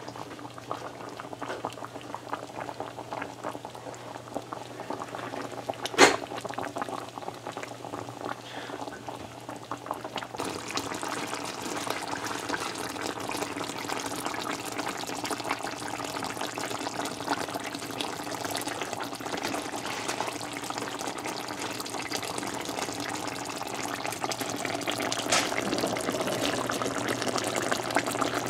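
Coconut-milk curry boiling uncovered in a pot, a steady bubbling that grows fuller after about ten seconds and louder near the end as it cooks down. One sharp click about six seconds in.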